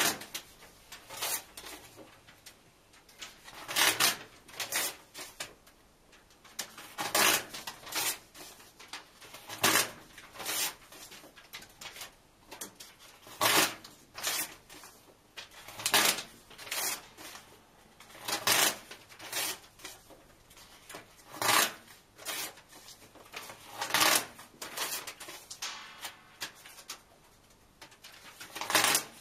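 Paper pages being ripped out of a book and torn in half: short tearing rasps about every two to three seconds, some in quick pairs.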